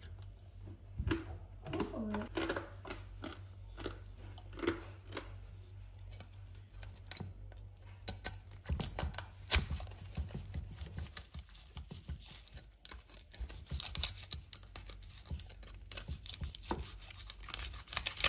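A chef's knife sawing through the crisp crackling of a roast pork, the hard rind crunching and cracking in a quick run of small snaps and clicks. The crackles come thickest in the second half.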